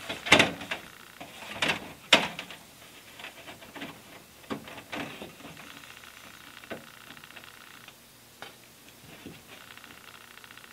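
Knocks and light clatter from hands and a spirit level on a stainless steel cabinet base while the cabinet is being levelled. The three loudest knocks come in the first two seconds, with smaller scattered knocks after, over a faint steady hum.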